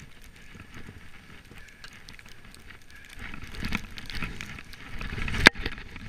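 Skis running through deep powder snow, a steady hiss full of small clicks that grows louder about halfway through, with one sharp knock near the end.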